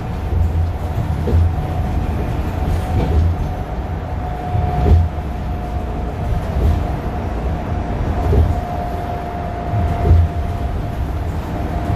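Interior of a 2021 Nova LFS diesel transit bus under way: the Cummins L9 engine and drivetrain run steadily with road rumble and a thin steady whine. Short low thumps come about every two seconds.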